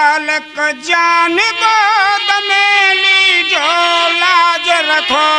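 A man sings a Holi folk song in long held, ornamented notes over steady harmonium chords.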